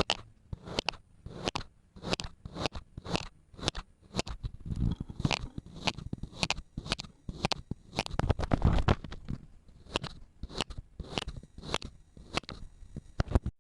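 Kinetic sand being cut and crushed: a steady run of crisp crunches, about two a second, with a longer gritty crush a little past the middle.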